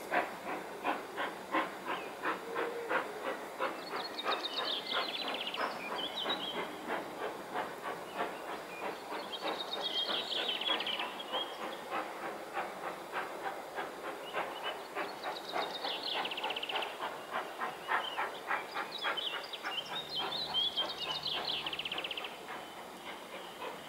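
Steam locomotive pulling away with a train, its exhaust beats coming evenly at about three to four a second and dropping away near the end. A songbird sings several short trilling phrases over it.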